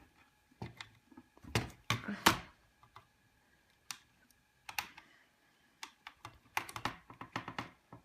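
Irregular light clicks and taps of a metal screwdriver and small parts being handled inside an opened Mac Mini G4 as a small internal screw is worked at, with a quick flurry of clicks near the end.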